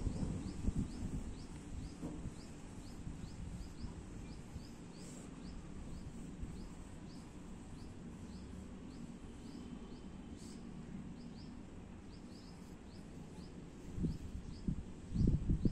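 A bird chirping steadily, short rising high notes about two to three a second, over a low background rumble. Low bumps break in near the end.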